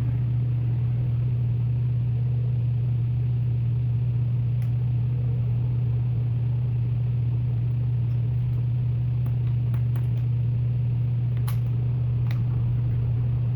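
A steady low hum at constant level, with a few faint, short clicks: one near the middle and two toward the end.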